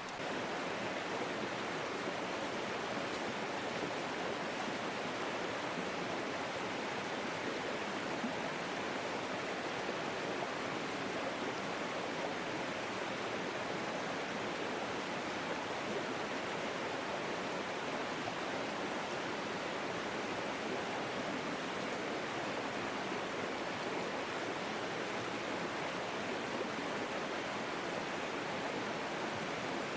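Mountain stream flowing, a steady even rush of water with no breaks.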